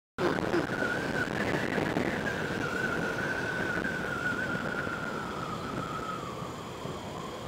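Honda Click 125i scooter on the move: steady wind and road rush with a thin whine that slowly drops in pitch over the last few seconds as it eases off.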